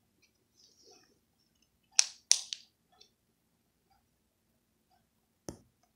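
Sharp plastic clicks from a felt-tip marker being handled on a cutting table: two quick clicks about two seconds in, then a single click near the end.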